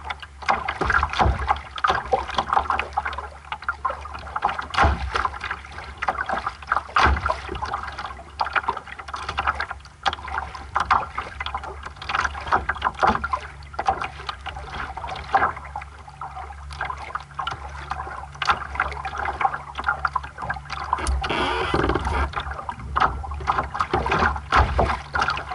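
Water splashing and slapping against the hull of a small sailing dinghy under way, in quick, irregular splashes over a steady low rumble.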